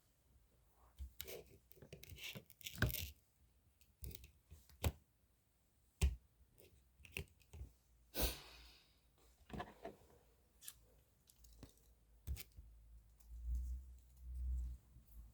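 Handling noises: irregular clicks, taps and short rustling or tearing sounds, with a couple of low thuds near the end.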